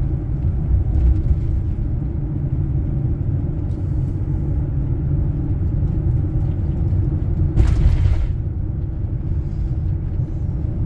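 Steady low rumble of a vehicle driving, heard from inside the cabin, with a short rush of noise about three-quarters of the way through.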